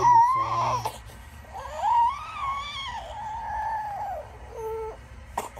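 A tired seven-month-old baby fussing: a long whiny cry that rises and falls, starting about a second and a half in, with shorter whimpers before and after it.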